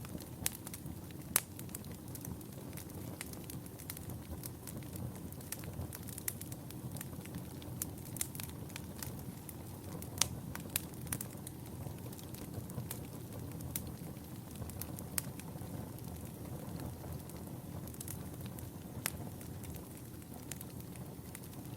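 Wood fire burning in a fireplace: a steady low rush of flames with frequent irregular sharp crackles and pops.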